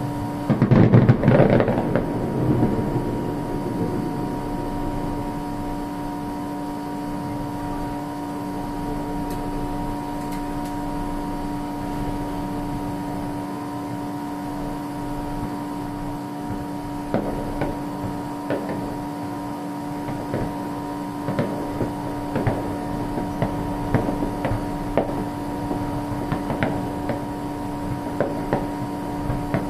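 Fireworks: a loud burst about a second in that dies away over a couple of seconds, then from about halfway on a run of sharp pops and crackles. A steady hum runs underneath.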